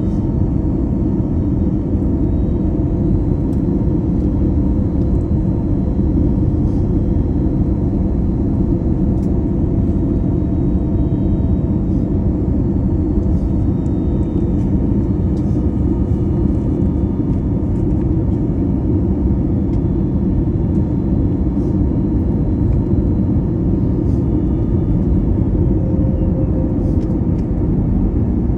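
Airbus A321neo airliner cabin noise: a steady low rumble of engines and airflow, with a faint steady hum above it and a few light clicks.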